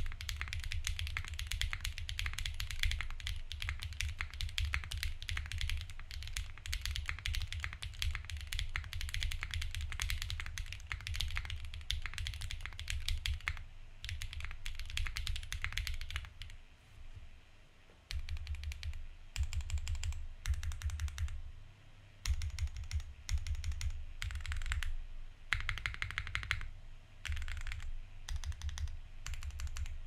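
Typing on a Sangeo60 custom 60% mechanical keyboard: a dense, unbroken run of keystrokes for about the first half, then a short lull and shorter bursts of keystrokes separated by brief pauses.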